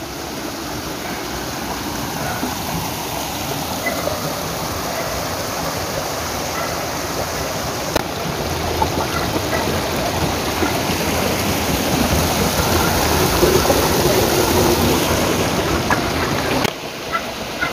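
Shallow rocky mountain stream rushing and splashing over boulders in a steady wash of noise. It grows gradually louder and drops away suddenly near the end.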